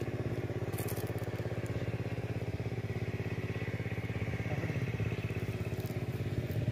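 An engine running steadily with an even, fast throb.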